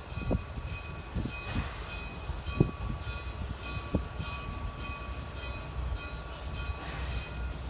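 Baldwin-built 0-4-0T steam tank engine in the distance, with a few short hisses and soft irregular thumps over a steady low rumble and faint steady ringing tones that come and go.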